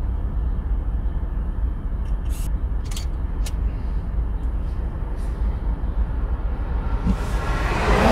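Steady low rumble inside a car moving slowly over a rough yard road, with a few brief high-pitched squeaks in the middle and a rush of noise that swells up near the end.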